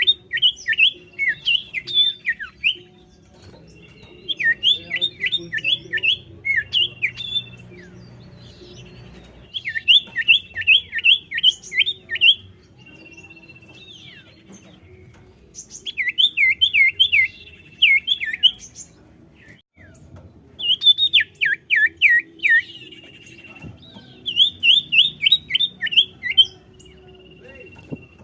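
Common iora (cipoh) singing in repeated phrases of quick, sweeping chirps, each phrase about two to three seconds long and coming roughly every five seconds, with a thin, level whistle held between phrases.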